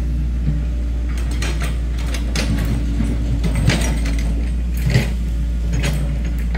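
Excavator diesel engine running steadily with a low rumble, with scattered sharp clicks over it.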